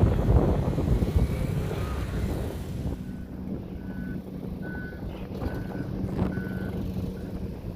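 Heavy construction machine's backup alarm beeping at a steady pace, about one short beep every 0.8 seconds, starting about three seconds in over a steady engine hum. Before that, loud rumbling noise that includes wind on the microphone.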